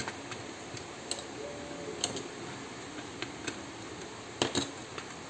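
Hard plastic parts of a disassembled Nerf Stryfe blaster clicking and knocking as they are handled, a few scattered clicks with a louder double knock near the end, over a steady background hiss.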